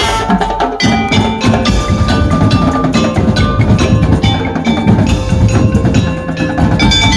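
Madurese ul daul (tong-tong) percussion ensemble playing: dense, fast strokes of wooden slit drums mixed with ringing pitched metal percussion. The heavier low drums come in about a second in.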